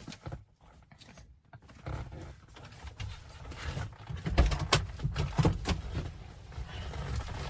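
A factory car radio being slid out of its dashboard slot, with scattered plastic and metal clicks, knocks and rubbing. The knocks are densest and sharpest about four to six seconds in.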